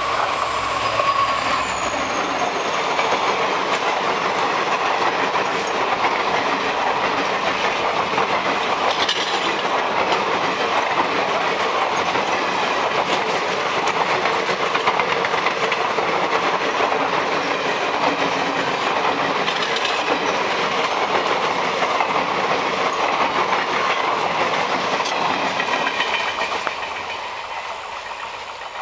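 Indian Railways WDP-4D diesel locomotive passing at speed, followed by a long string of passenger coaches clattering steadily over the rail joints. The sound fades as the last coach moves away near the end.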